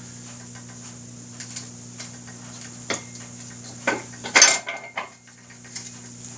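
Metal tire tools clinking and scraping against a motorcycle wheel rim while a tire bead is worked on. There are a few separate clicks, then a loud clattering scrape about halfway through.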